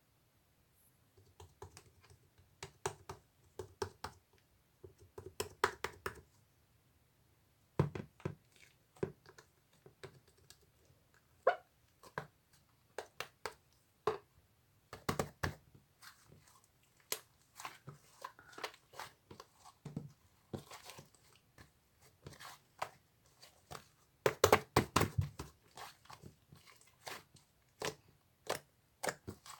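Slime being squeezed, poked and stretched by hand, giving irregular sticky clicks, pops and crackles, sometimes in quick runs.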